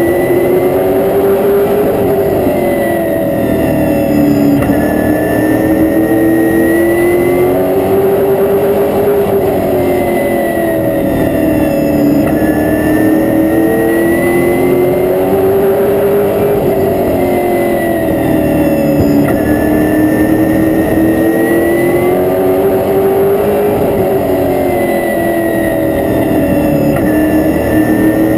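Race car engine heard from inside the cockpit, running hard around a short oval: its pitch climbs on each straightaway and drops as the driver lifts for the turns, about every seven seconds.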